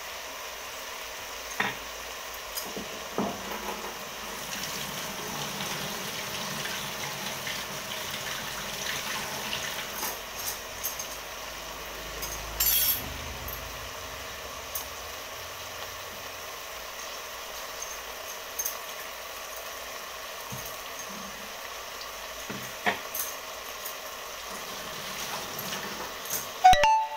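Kitchen utensils clinking and knocking now and then as food is handled at the counter, over a steady hiss. A louder clatter comes about halfway through, and a sharp knock with a brief ring just before the end.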